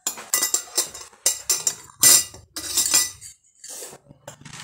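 Metal spoons clinking and clattering against dishes and glass in a quick, irregular run, loudest about two seconds in, then a few fainter clinks.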